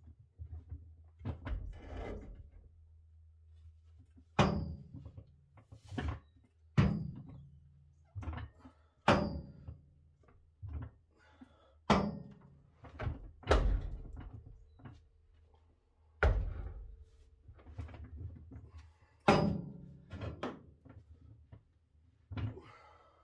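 Heavy metal clunks and knocks, about ten, irregularly a second or two apart, some with a brief metallic ring, as a 1948 Ford F5 transmission on a jack is worked into place against the bell housing.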